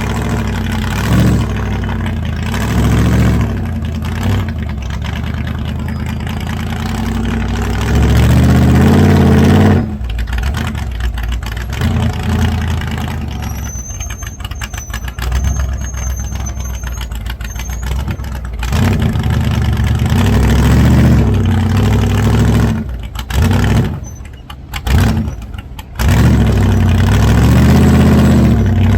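Off-road rock-crawling rig's engine idling and revving in repeated surges as it works its way over boulders, with a quieter, lower-revving stretch in the middle.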